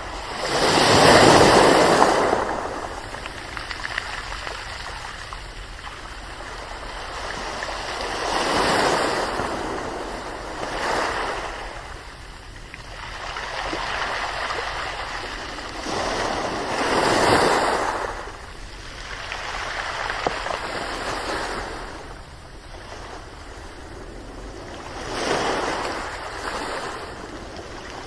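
Ocean waves breaking and washing ashore in slow swells, roughly every eight seconds, with a steady wash between them; the loudest surge comes about a second in.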